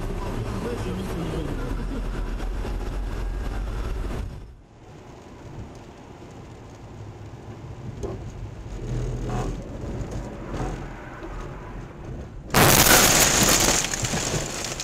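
Dashcam audio from inside a moving car: steady engine and road noise, then a quieter rumble of tyres on a wet road. Near the end a sudden loud rushing noise lasts about two seconds.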